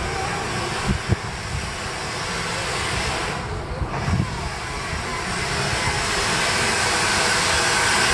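Steady hiss of escaping steam from a steam locomotive, growing louder toward the end, with a few faint knocks.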